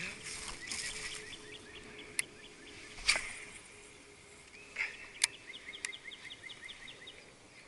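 A bird sings a rapid, even trill twice, each about a second long: once about a second in and again just after five seconds. A faint steady hum runs under it, with a few sharp clicks, the loudest about three seconds in.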